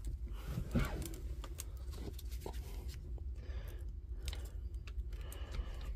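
Quiet workbench handling during soldering on a battery pack: scattered light clicks and ticks over a steady low hum.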